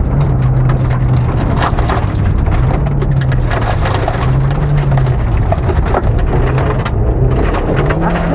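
Opel Corsa A GSI rally car heard from inside the cabin on a gravel track: the four-cylinder engine running under load, its pitch dropping and rising a few times with lifts and gear changes, over a constant rattle and patter of gravel and stones striking the underbody.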